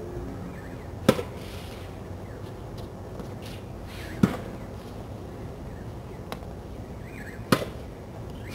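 Tennis racket striking a ball three times, about three seconds apart, each a sharp pock, with a few fainter knocks between.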